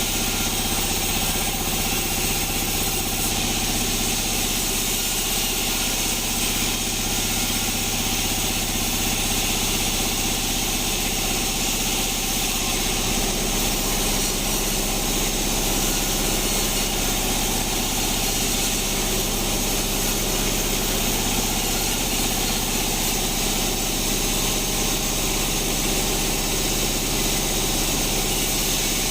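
Band sawmill machinery running steadily: a constant low machine hum with a high, even hiss over it and no change throughout.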